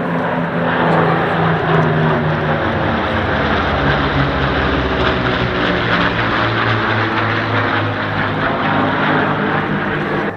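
A formation of four piston-engined propeller warbirds flying overhead, their engines running with a steady drone. The drone drops in pitch about a third of the way through as they pass.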